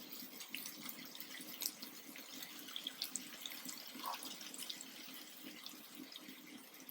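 Faint sizzling and crackling with scattered small ticks over a low steady hum, as a burning lump of charcoal is set in a small bowl inside the pan of cooked chicken to smoke it.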